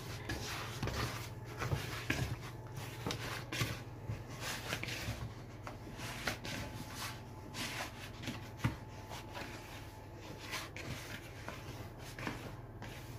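Hands kneading a thick, crumbly shortcrust dough in a plastic bowl: irregular rubbing and squishing, with an occasional sharper knock.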